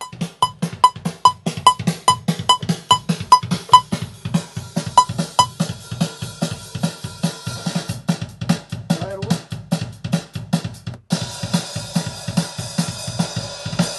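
Punk rock drum kit playing a fast, steady beat of kick and snare, with a short high click on each beat through the first few seconds. From about eleven seconds in, the cymbals ring on continuously over the beat.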